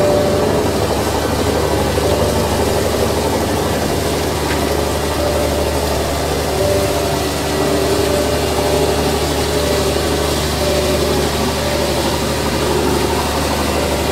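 A ship's engine idling, a steady low drone that holds even throughout.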